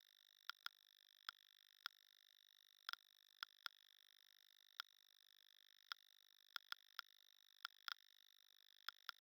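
Homemade Geiger counter with an Si14b Geiger tube sounding short pitched clicks at irregular, random intervals, about two a second, each click one detected radiation event. A faint steady high tone sits underneath.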